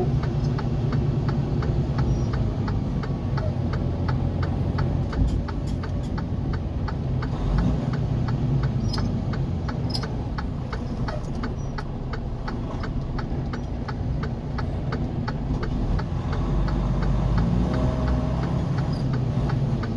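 Car engine running at low speed and idling, heard from inside the cabin, with a turn-signal indicator ticking steadily at about two to three ticks a second; the ticking stops a few seconds before the end.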